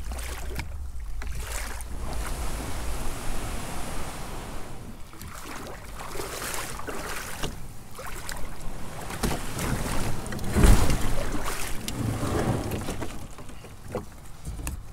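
Water splashing and sloshing around a kayak and its paddle, with wind rumbling on the microphone for the first few seconds. One heavy thump about two-thirds of the way through.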